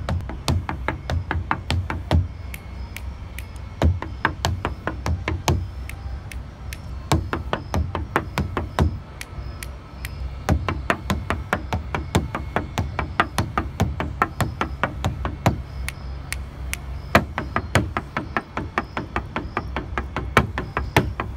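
Flamenco zapateado footwork: heeled flamenco shoes striking wooden deck boards in fast, rhythmic runs of sharp heel and toe strikes, several a second, with louder accented stamps, over a steady low hum.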